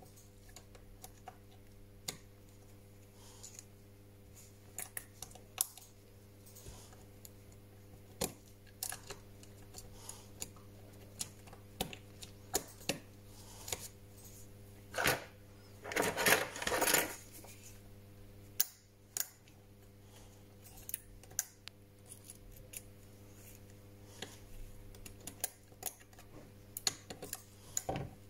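Scattered small clicks and taps of gloved hands handling an opened Samsung Galaxy S9 Plus's motherboard and frame, with a louder scraping rustle about halfway through. A steady low hum sits underneath.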